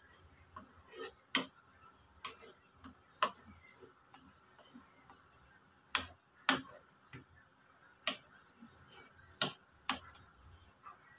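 Wooden spatula knocking and scraping against an aluminium pot of boiling dal while stirring: irregular sharp clicks, several of them louder knocks.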